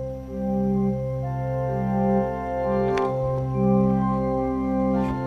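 Organ playing sustained chords that change every second or so.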